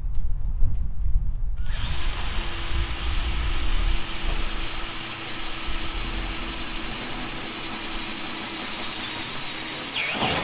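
Power drill running steadily, boring a hood-pin hole down through a Camaro's cowl hood from the top with a larger bit; it starts about two seconds in after a low rumble and stops near the end.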